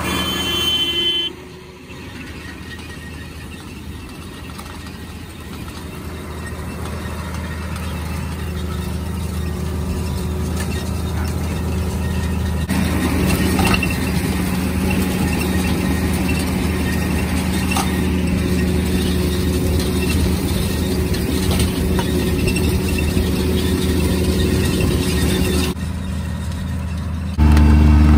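John Deere 4230 tractor's six-cylinder diesel engine running steadily under load, pulling an Aitchison no-till seeder through sod. The drone swells over the first dozen seconds and gets much louder shortly before the end.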